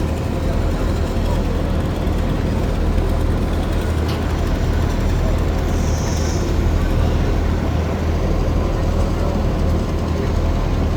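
Boat engine running steadily aboard a river-crossing ferry, a deep constant hum under a steady rushing noise.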